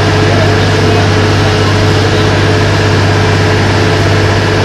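Small motorboat's engine running steadily under way, a constant low drone, with the rush of water along the hull.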